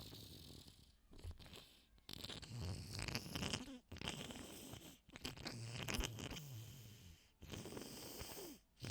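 A person sniffling and breathing hard through a wet, runny nose during a sneezing fit: uneven breathy bursts broken by several short pauses, with a couple of louder wet snorts.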